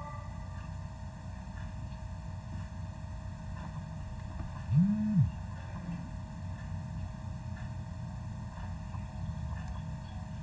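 A steady low electrical hum, with a single low tone about five seconds in that rises and falls in pitch for about half a second.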